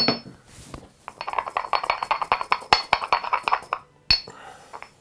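Pestle working in a stone mortar, crushing caraway seeds: a sharp ringing clink, then about three seconds of quick gritty grinding strokes, and another ringing clink a little after four seconds in.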